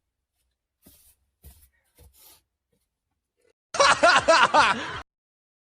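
A man laughing in a short burst of about a second near the end, cut off abruptly. A few faint soft noises come before it.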